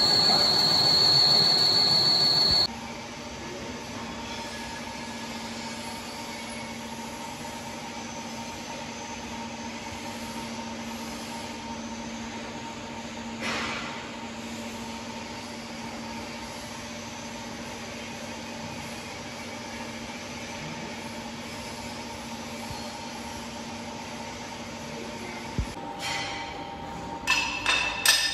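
A lathe cutting a C45 steel blank under coolant, a loud steady cut with a wavering high whine, cuts off abruptly after about three seconds. A quieter steady machine hum follows, and a few sharp metallic clinks come near the end.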